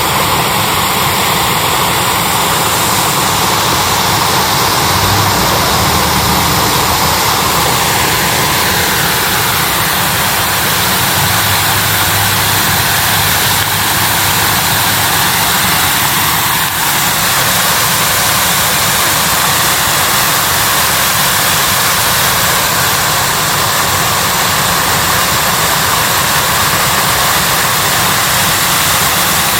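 Icy winter waterfall running: a loud, steady rush of falling water.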